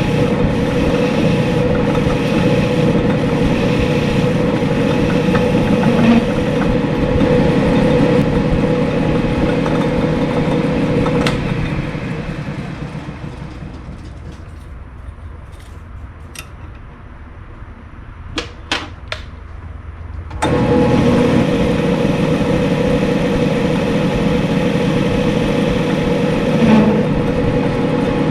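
Small metal lathe running with a steady hum. It is switched off about 11 seconds in and spins down, a few light metallic clicks follow, and it is switched back on with a sudden start about 20 seconds in.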